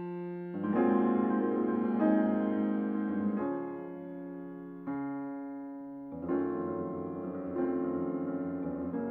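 Slow piano music with held chords, a new chord struck about every second and a half and fading between strikes.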